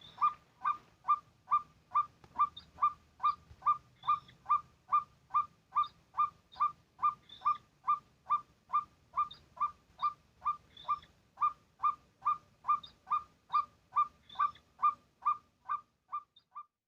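White-breasted waterhen call: a steady, rapid run of short notes, about two and a half per second, that stops abruptly near the end.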